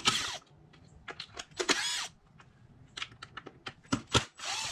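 Small power driver spinning out T25 Torx screws in three short bursts, the pitch gliding as each spins up and down, with light clicks and taps of tools on metal and plastic between them.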